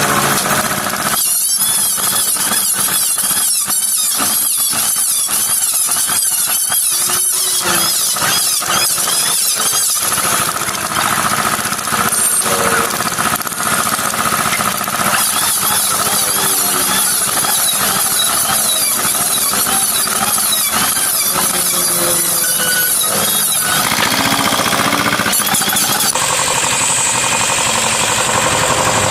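Electric power tool with a high-pitched whine, cutting into MDF. Rapid chattering runs through the first stretch, and the tone shifts a few times as the cut changes.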